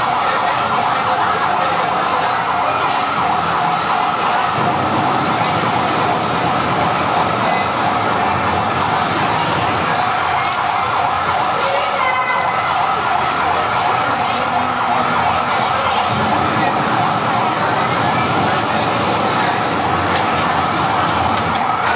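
An electronic siren sounding steadily without a break, a fast warble in a narrow pitch range, as an alarm for a mock fire-fighting drill while water sprays from hoses.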